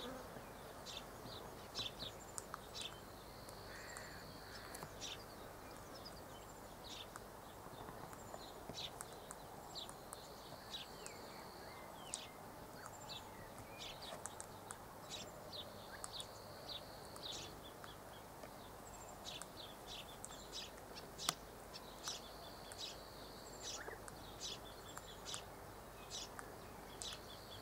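Faint open-air ambience with scattered short, high bird chirps and clicks. A steady high-pitched buzz recurs every five or six seconds, lasting a second or two each time.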